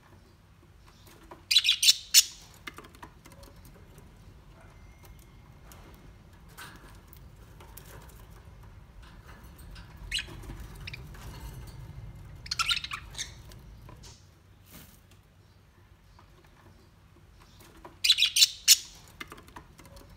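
Crimson rosella giving short bursts of rapid, chattering calls, loudest about two seconds in, again around twelve seconds and near the end, with fainter chirps between.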